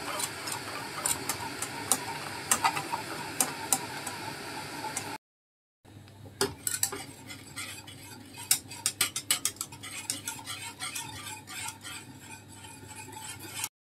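A wire whisk beating a thick chocolate ganache in a metal pot, the wires scraping and clicking rapidly against the pot's sides and bottom. It breaks off for about half a second a little after five seconds in, then carries on until just before the end.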